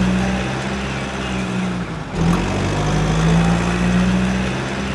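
Truck engine sound effect: a steady engine hum that is looped, starting over about two seconds in.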